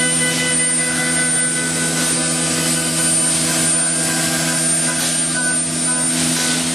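CNC woodworking machine running: a steady mechanical hum and whine made of several fixed tones, with a high whine over it.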